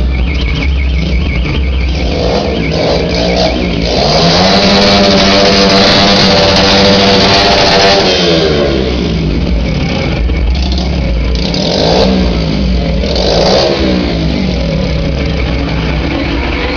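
An engine revved hard: its pitch climbs about four seconds in, holds high for about four seconds, then falls back. It is followed by three short throttle blips.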